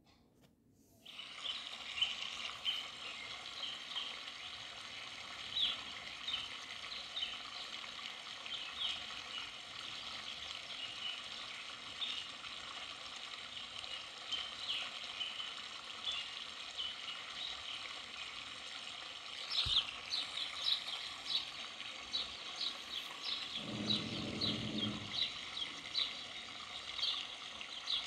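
Steady rushing water of a tall waterfall, starting about a second in, with many short high ticks over it that grow busier about twenty seconds in.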